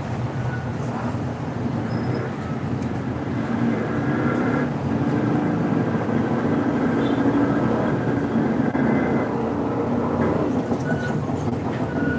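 A steady mechanical rumble with faint humming tones and a few small clicks.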